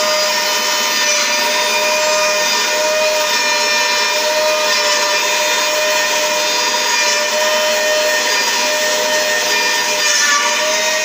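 Metabo KFM 15-10 F edge milling machine running under load, its cutter milling a bevel along the edge of a thick steel plate. A steady, unbroken whine with a constant tone over the cutting noise.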